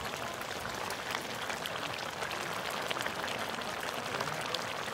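Thick goat offal curry bubbling and sizzling in a wide metal pan over a wood fire: a steady hiss thick with small popping crackles.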